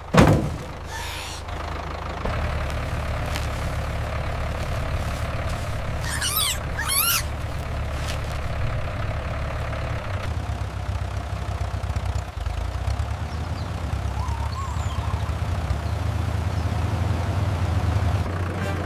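An engine running steadily with a low rumble, with a loud knock right at the start and two short wavering high squeals about six to seven seconds in.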